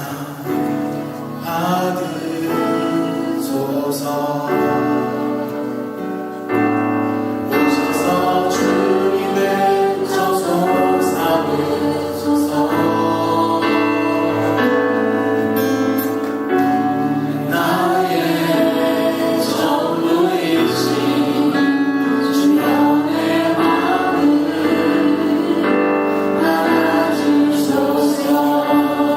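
A choir sings with many voices in sustained held notes, in the style of gospel or church music. The singing grows louder a little under seven seconds in.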